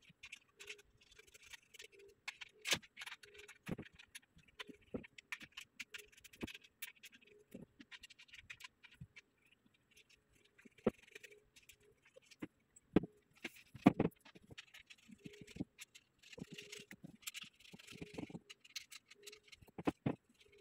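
Handling and fitting of metal bed-frame parts: scattered clicks, knocks and scrapes, with two louder knocks about two-thirds of the way in, and some rustling of packaging.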